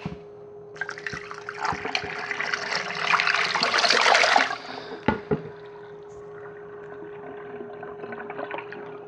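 Water rushing through a small homemade clay model toilet as it flushes, building for a few seconds and stopping sharply about halfway through, followed by a thin trickle as the bowl drains.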